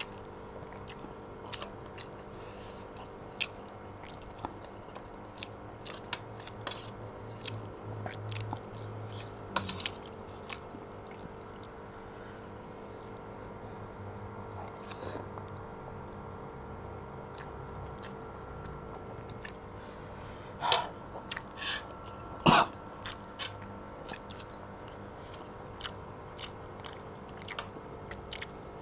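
Close-miked chewing of chicken noodles, many small wet mouth clicks over a steady hum, with a couple of louder sharp sounds about two-thirds of the way through.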